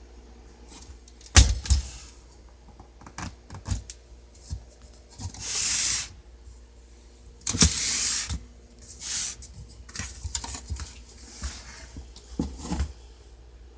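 Olivetti Underwood Studio 44 portable typewriter being worked by hand: a series of sharp mechanical clicks and clacks, the loudest about a second and a half in, and two longer rasping sweeps of under a second each near the middle.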